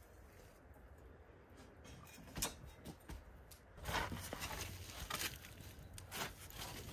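Poker stirring and spreading glowing embers at the bottom of a tandoor, with a handful of separate scrapes and knocks. The longest and loudest comes about four seconds in.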